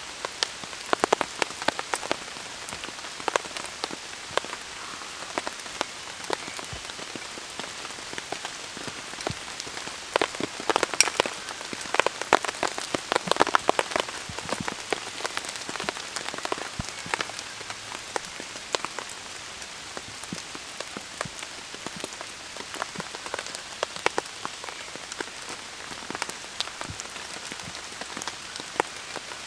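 Steady rain with many individual drops pattering sharply, likely on the tarp and leaves. There is a flurry of louder drops from about ten to fourteen seconds in.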